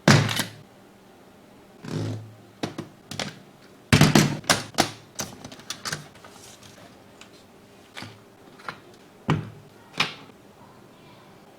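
Handling sounds from unboxing a mechanical keyboard: irregular clicks and knocks of the box and packaging being handled. There is a cluster of sharp clicks about four to five seconds in.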